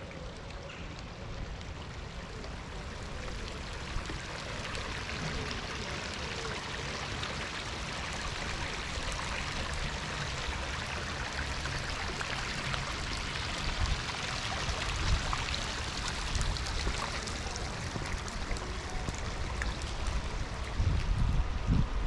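Water of a city fountain running and splashing into its shallow stone basin, a steady rushing hiss that grows louder midway as the water comes close. Near the end, low thumps of wind buffeting the microphone.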